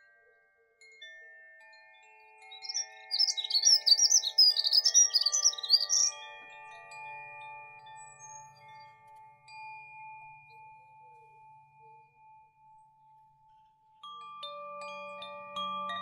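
Koshi bamboo wind chimes ringing, their tuned metal rods giving soft, held tones that slowly fade, with a fresh cluster of strikes near the end. About three seconds in, a songbird sings a loud, quick, warbling high-pitched phrase lasting about three seconds.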